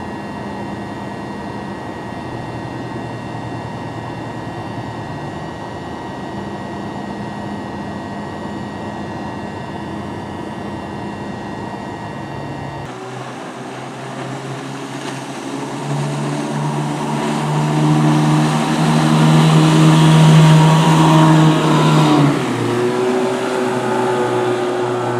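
A steady engine hum, then, after an abrupt change about halfway, an outboard motor running a boat at speed. Its note builds and grows loud for several seconds, then drops off sharply near the end.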